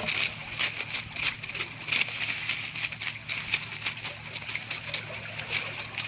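Water streaming, splashing and dripping off a mesh net bag of live shrimp as it is hauled out of a shrimp-pond sluice, in irregular splashes and drips.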